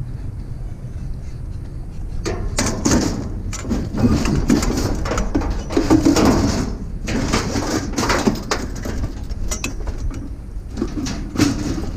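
Metal scrap being handled and loaded onto a trailer: loose table parts and rusty bicycles clanking and scraping against each other in irregular bursts through the middle, over a steady low rumble.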